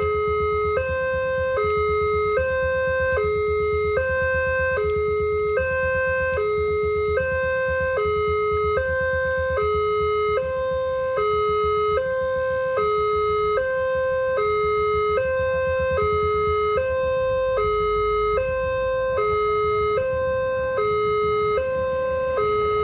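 Railway level-crossing warning alarm sounding a steady two-tone hi-lo signal, switching between a higher and a lower note about every 0.8 seconds. This is the signal that a train is approaching and the crossing gate is closing.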